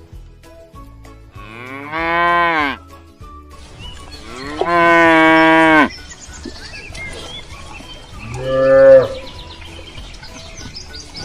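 Cattle mooing: three long moos a few seconds apart, the last one shorter and the loudest.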